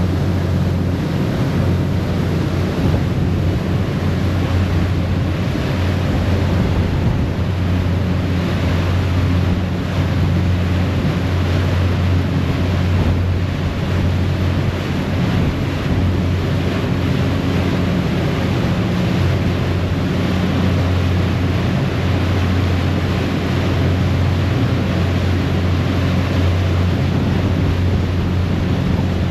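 A passenger ferry under way: its engine running with a steady low hum, over the rush of its churning wake and wind on the microphone.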